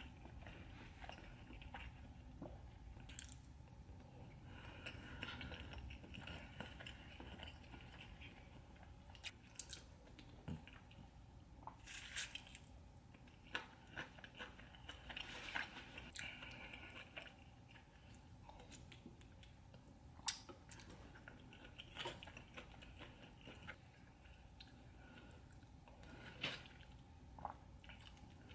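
Faint close-miked eating sounds: a person chewing and biting seafood, with wet, squishy mouth smacks and scattered sharp clicks.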